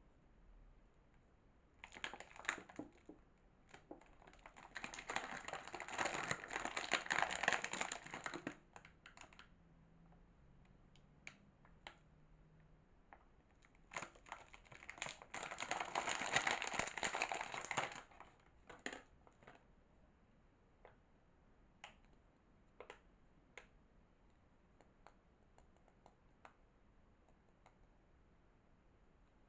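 Soap packaging being opened by hand: wrapper crackling and rustling in two dense stretches, with scattered light clicks and taps between them.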